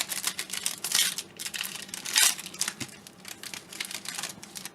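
A trading-card pack wrapper being torn open and crinkled by hand: a run of sharp crackles, loudest about one and two seconds in, thinning out near the end.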